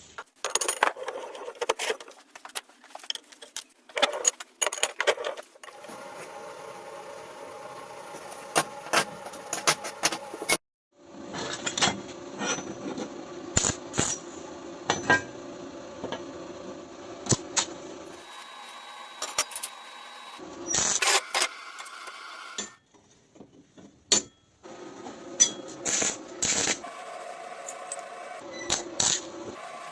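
Workshop handling of metal parts: irregular sharp clinks and knocks, over stretches of a steady hum, broken by two abrupt cuts.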